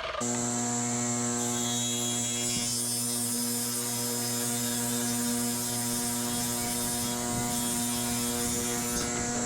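An electric motor on a power tool running steadily at one unchanging pitch, with a mechanical clatter under it.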